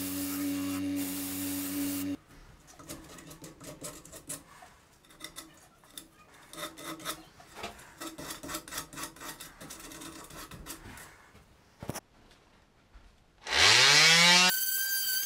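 Jet 1221 VS wood lathe running with a steady hum, which stops abruptly about 2 seconds in. Irregular scratchy rubbing of sandpaper against the wooden bowl follows. Near the end the lathe's motor spins up with a rising whine and settles into a steady high whine.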